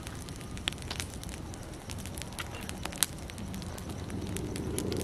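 A fire of rice straw and firewood burning, crackling with irregular sharp pops over a low steady rumble, one pop louder about three seconds in.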